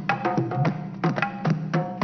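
Music: a quick, even rhythm of struck percussion with pitched, ringing notes.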